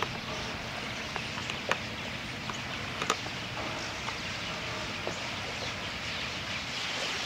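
A huge flock of purple martins calling all at once, a dense steady chatter with a few louder chirps standing out.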